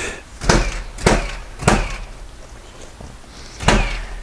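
A series of sharp knocks: three in the first two seconds, then one more near the end.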